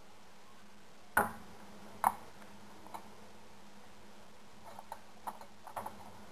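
Lab equipment being handled: two sharp knocks with a brief ring about a second and two seconds in, then a cluster of lighter clicks and taps near the end.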